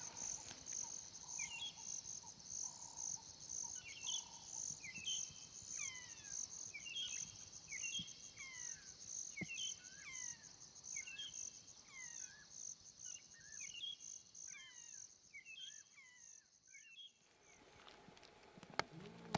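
Bushveld ambience: an insect's steady, high-pitched pulsing chirr, with a bird repeating short, falling whistled notes about once a second. Both cut off abruptly near the end, leaving only faint background.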